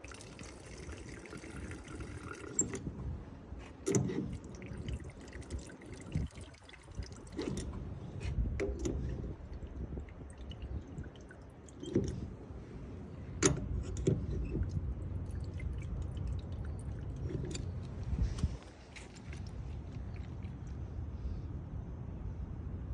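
Aviation fuel trickling and dripping into a clear fuel sampler cup pressed against a Cessna's sump drain valves, with a hiss near the start and several sharp clicks as the cup's probe pushes a valve open and lets it snap shut.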